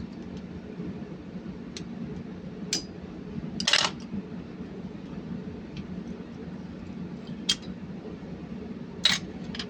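A handful of sharp metallic clinks and clicks from hand tools and metal parts as a pipe clamp and lock are handled and fitted on a diesel engine's cylinder head, one slightly longer scraping clink about four seconds in. A steady low hum runs beneath.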